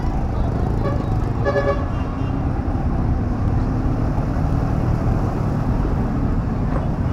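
Steady street traffic noise, motor vehicles running past. A short horn toot comes about one and a half seconds in.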